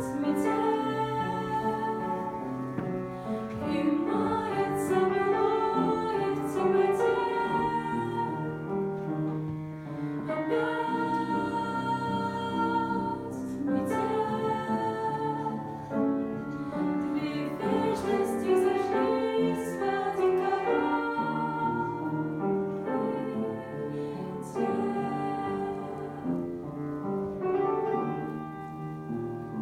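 Female voices singing together, in harmony over piano accompaniment.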